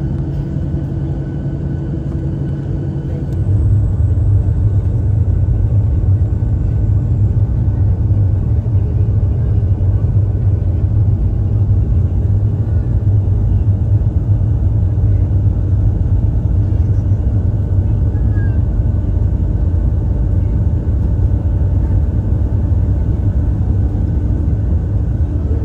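Inside the cabin of a Boeing 737-700, the CFM56-7B engines and the wheels rumble deep and steady on the takeoff roll. About three and a half seconds in, the rumble steps up sharply as takeoff thrust comes on, then holds loud and even.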